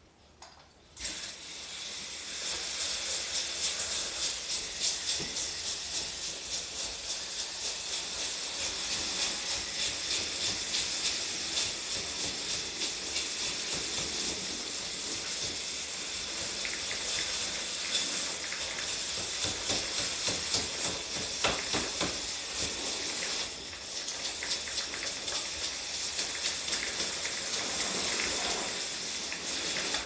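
Water sprayed from a hose nozzle onto the opened indoor unit of a wall-mounted air conditioner during cleaning, a steady hissing spray splashing off the unit into a plastic drain cover. It starts about a second in and breaks off briefly about three-quarters of the way through.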